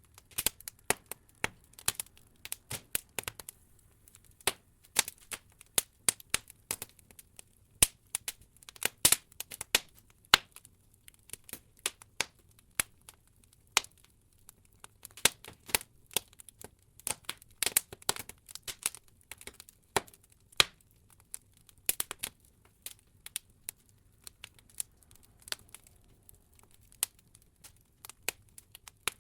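Wood logs burning in an open fireplace, crackling with irregular sharp pops and snaps, busier in some stretches than others.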